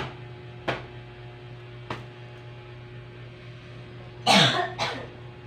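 A person coughs about four seconds in, a loud cough followed by a shorter one, over a steady low hum. A few light clicks come earlier.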